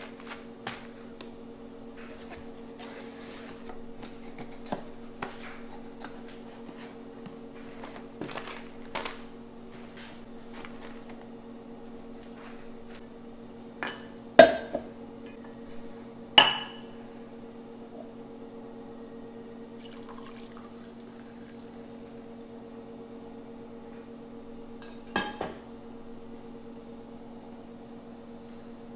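Kraft-paper coffee bags rustling as they are handled, then an enamel mug set down hard on a table twice, each knock ringing briefly, and a lighter double knock later. A steady low hum runs underneath.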